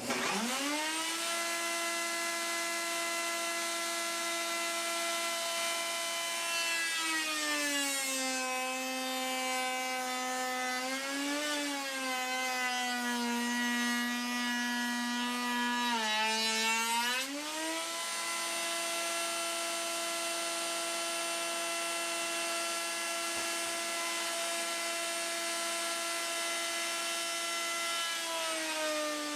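Router in a router table switched on and spinning up to a steady high whine. Its pitch drops for about ten seconds while the raised-panel bit cuts along the edge of a door panel, then recovers once the cut is through. It drops again near the end as the next cut begins.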